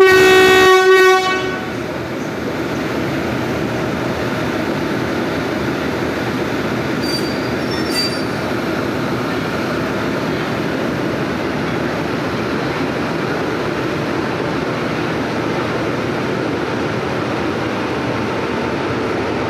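Indian Railways WAP-7 electric locomotive's horn sounds once for about a second and a half, then gives way to the steady rumble of the departing train's coaches rolling over the track, with two brief faint high squeals about seven and eight seconds in.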